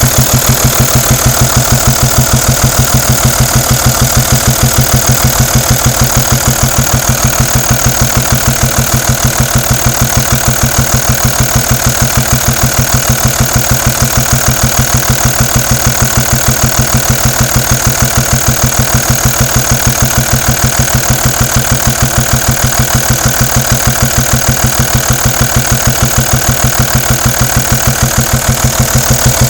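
Audi A4 Cabriolet's 2.5 TDI V6 turbodiesel (163 hp) idling steadily, with an even, fast diesel clatter.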